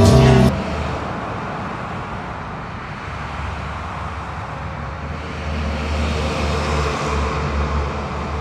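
Music cuts off about half a second in, leaving a steady low rumbling noise that swells slightly near the end.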